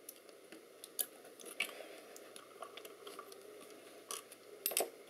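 Faint, scattered clicks and scrapes of metal parts and tools being handled while an optical assembly is taken apart, with a louder cluster of clicks near the end.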